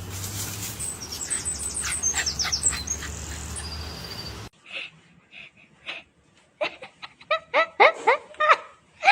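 High, quick chirps sliding down in pitch over a steady low hum. After an abrupt cut, a dog gives soft whining yips, a string of short calls that slide down in pitch and get louder near the end, as it tries to bark quietly.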